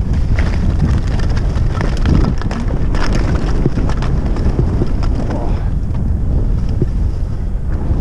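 Wind buffeting the microphone at skiing speed, with the scraping hiss of skis carving down packed snow.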